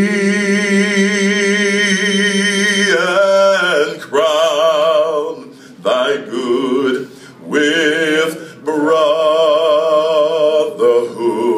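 A man singing solo, unaccompanied: one long held note with a wide vibrato for about three seconds, then several shorter drawn-out phrases with vibrato, broken by brief pauses for breath.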